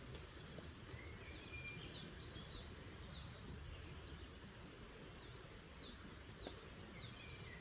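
Small woodland birds singing: a steady run of short, high chirps and arched whistles, over a low background rumble.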